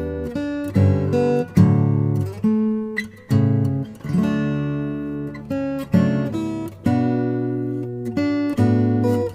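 Background music: acoustic guitar strumming chords, struck about once a second and ringing out between strikes.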